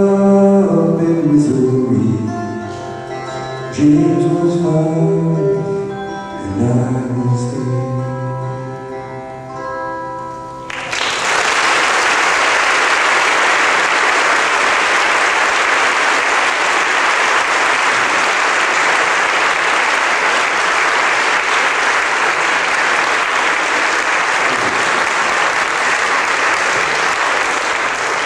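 Mountain dulcimer playing the last notes of a song. About eleven seconds in, an audience breaks into steady applause that carries on.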